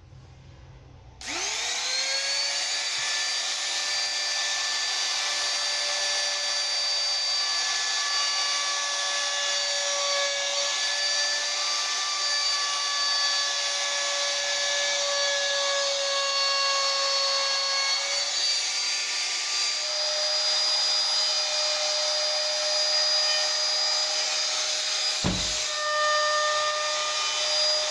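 Compact trim router spinning up about a second in, then running steadily with a high whine as its flush-trim cutter trims an overhanging laminate edging strip flush with the worktop. Its pitch steps up a little about two-thirds of the way through, and there is one low thump near the end.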